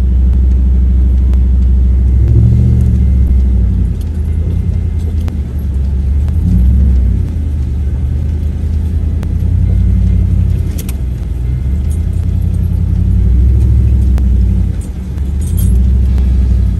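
Four-wheel-drive vehicle's engine running under load at crawling speed over rocks, heard from inside the cab, its level swelling and easing every couple of seconds as the wheels climb.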